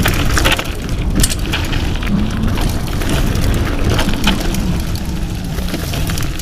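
Mountain bike riding over a rough trail: tyres crackling over gravel and stones and the bike rattling with irregular sharp knocks, over a steady rumble of wind on the microphone.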